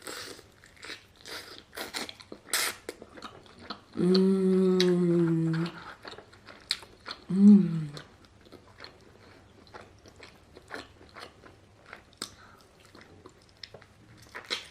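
Close-up chewing and biting into a grilled chicken drumstick, with many small wet clicks and crunches. A long hummed "mmm" of enjoyment comes about four seconds in, and a shorter one about halfway through.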